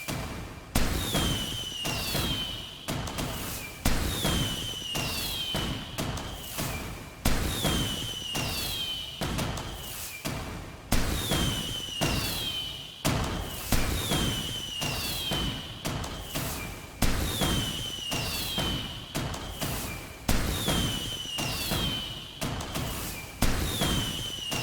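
Fireworks going off in a steady series: sharp bangs every second or two, each run with a high whistle that falls in pitch.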